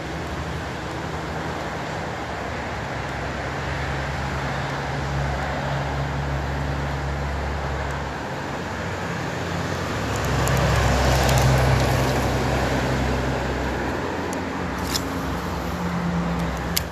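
Road traffic: engines of passing vehicles humming steadily, one passing closer and louder about ten to thirteen seconds in, with a few sharp clicks near the end.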